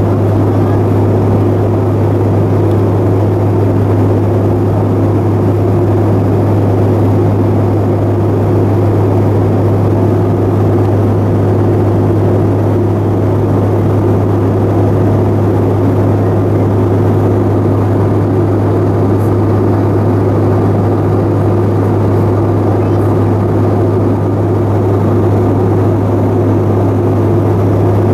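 Steady cabin drone of a Bombardier CRJ-700 in flight: its rear-mounted General Electric CF34 turbofans and the airflow over the fuselage, heard inside the cabin, with a strong low hum.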